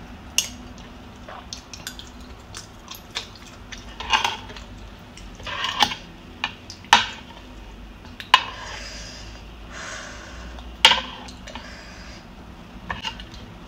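Metal spoon clinking sharply against a ceramic soup bowl several times, with slurps of pho broth in between.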